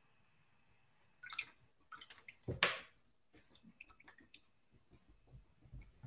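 Faint, scattered light taps and clicks, with one short wet swish about two and a half seconds in, from a paintbrush being dabbed and worked in paint and water.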